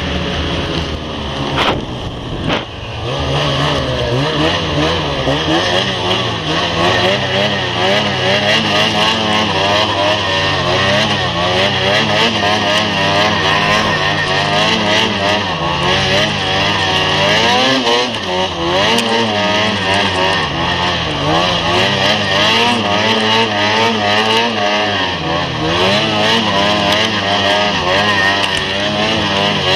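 Snowmobile engine running under way, its pitch rising and falling again and again as the throttle is worked through deep snow, with a steady hiss beneath and two short knocks near the start.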